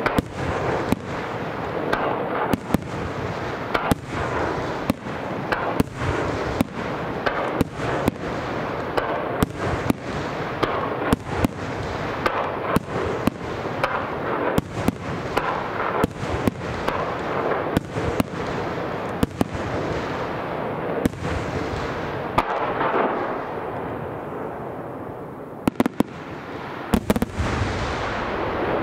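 Aerial fireworks shells bursting in rapid succession, about one to two sharp bangs a second over a continuous rumble and crackle. Near the end, after a slightly quieter moment, several sharp bangs come in quick succession.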